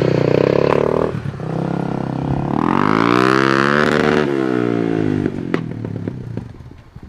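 TRF250's engine through a DG aftermarket muffler, loud: held at high revs, dropping back about a second in, revved up again about two and a half seconds in, then falling back and fading away near the end.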